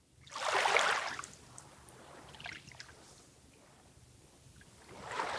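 Two short wet swishes of water, one about half a second in and another near the end, with faint trickling sounds between them.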